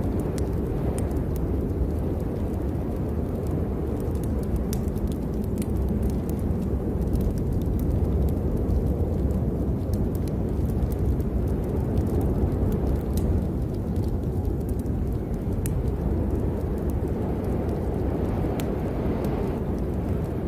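Steady low rumbling noise with scattered sharp ticks and pops throughout, typical of a rain, storm or fire ambience recording.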